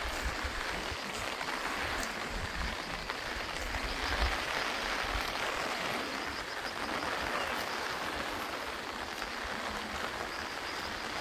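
Steady hiss of rain falling over open pasture and pooled water, with low wind buffeting on the microphone at times.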